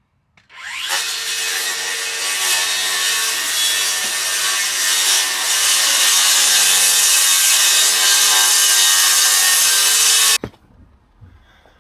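Power saw cutting through wood. It spins up with a rising whine about half a second in, runs steadily for about ten seconds, then stops abruptly.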